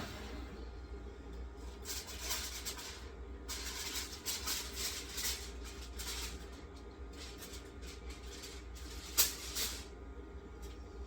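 Aluminum foil crinkling as it is peeled off a glass baking dish, in several rustling bursts, with one sharp knock about nine seconds in, over a steady low hum.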